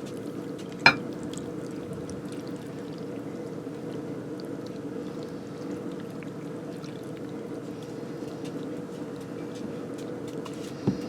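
Vegetable stock being poured steadily into a tagine over sliced potatoes. There is a sharp knock about a second in and another near the end.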